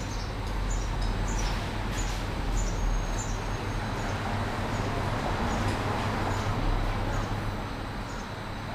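Steady low hum and hiss of a small noodle-stall kitchen at work, with faint short high chirps scattered through.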